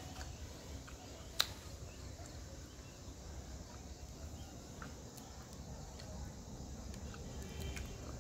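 Faint eating sounds as a roast chicken leg is pulled apart by hand and chewed, over a steady low background hum. One sharp click about a second and a half in, with a few fainter clicks later.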